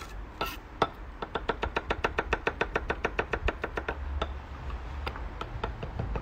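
Chef's knife chopping peeled garlic on a wooden end-grain chopping block: two single knocks, then a quick run of even chops, about six a second, from about a second in, thinning to scattered chops in the second half.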